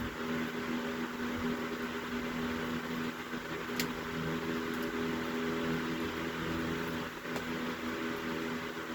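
Antique GE 16-inch table fan with an aluminum blade running steadily: a low motor hum under an even rush of air, pretty quiet. A faint tick sounds about four seconds in.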